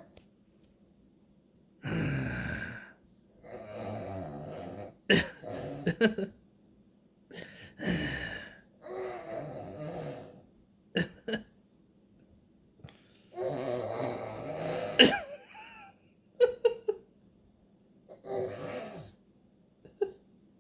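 A man and an almost 11-month-old baby boy trading growling noises back and forth. There are short rough growls of about a second each, with pauses between them.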